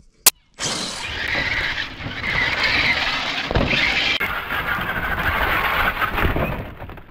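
After a brief silent gap and a sharp click, a radio-controlled crawler truck's electric motor and gear drivetrain whine steadily as the truck drives over ice and into a snow bank, with its tyres crunching through the snow.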